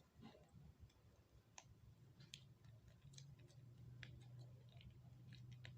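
Near silence with faint, scattered small clicks and ticks from handling a small plastic bag of sweetened condensed milk. A faint low hum comes in about halfway through.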